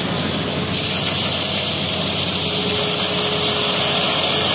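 Hitachi hydraulic excavator's diesel engine running steadily under load as its bucket tips wet river sand and gravel into a dump truck's bed, with a steady hiss that comes in under a second in.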